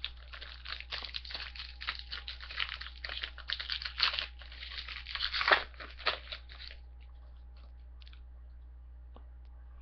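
Foil wrapper of a basketball card pack crinkling as it is torn open and handled, a dense crackle that stops about seven seconds in.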